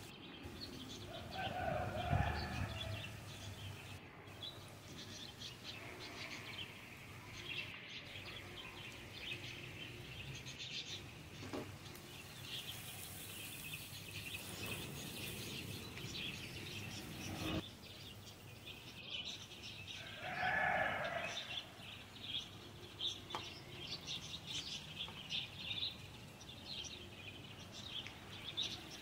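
Small birds chirping steadily over a faint sizzle from egg and vegetables being stir-fried in a wok. A louder, longer call comes twice: about two seconds in and again about twenty seconds in.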